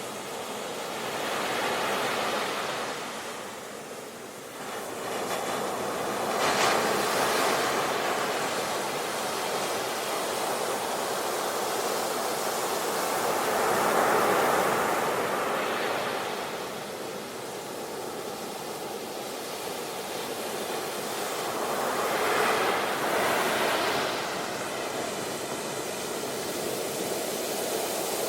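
Ocean surf: waves breaking and washing up a beach, the rush swelling and easing every several seconds.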